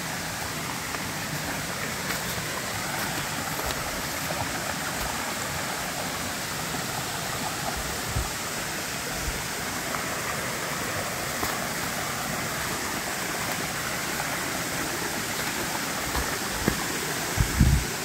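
Rain-swollen, muddy creek rushing over rocks: a steady rush of running water, high after heavy rain. A few low thumps near the end.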